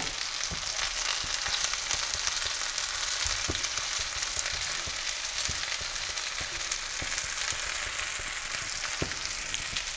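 Marinated chicken pieces sizzling in hot oil in a nonstick frying pan, with a silicone spatula stirring and turning them, and a few light knocks against the pan.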